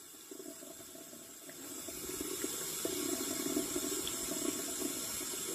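A sink tap running in a thin, steady stream of water, growing louder about two seconds in.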